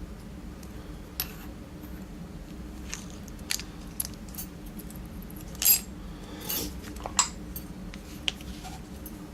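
Small metal clicks and scrapes of a padlock being taken apart by hand, tools working against the lock's body and core, in scattered short strokes, the loudest a brief scrape about halfway through and a sharp click a second later.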